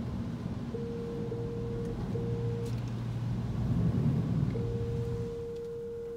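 Low steady rumble of a car moving slowly into the car wash bay, with electronic beeps at one steady pitch: two short beeps in the first few seconds, then a long held beep from about four and a half seconds in.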